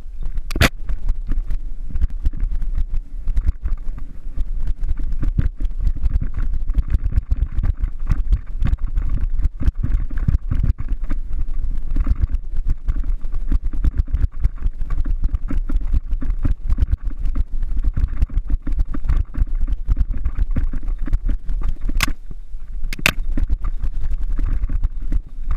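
Mountain bike ridden fast down a rough dirt forest trail, picked up by a camera on the bike or rider: a constant rumble of wind and tyre noise with dense rattling and knocking from the bike over bumps and roots. A few sharper clacks stand out, one right at the start and two close together near the end.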